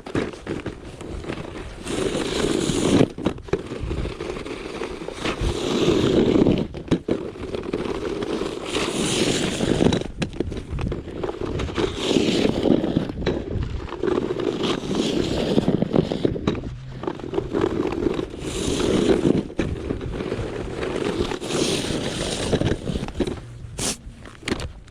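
Snow shovel scraping along pavement in repeated strokes, one about every three seconds, with knocks of the blade in between.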